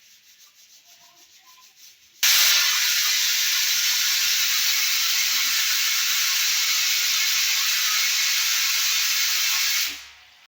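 Pressure cooker whistling: steam jets out of the weight valve as a loud, steady hiss that starts suddenly about two seconds in, lasts about eight seconds and fades out near the end. It is the cooker's first whistle, the sign that it has come up to pressure.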